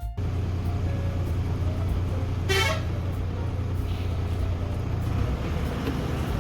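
Bus engine and road noise heard from inside a moving bus: a steady low rumble, with a short horn toot about two and a half seconds in.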